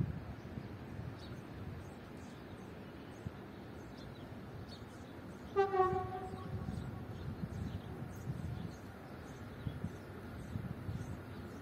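The horn of a TerraSur UTS444 electric multiple unit approaching the station sounds one short single-note blast about halfway through, over a low steady rumble.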